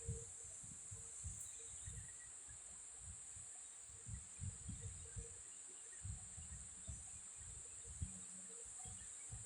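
A woman snoring faintly in her sleep, low snores and breaths coming irregularly, under a steady high hiss.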